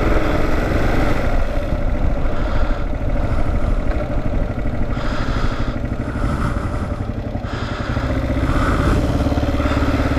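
Single-cylinder engine of a 2009 Kawasaki KLR 650 motorcycle running under way at town speed. Its level dips briefly about three-quarters of the way through, then picks up again.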